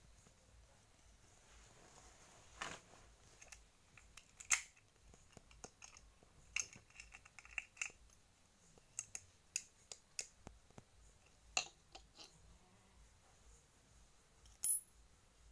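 Faint, irregular clicks and knocks as lumps of dried black turmeric root and a steel padlock are set down on a concrete floor. A sharper metallic clink comes near the end.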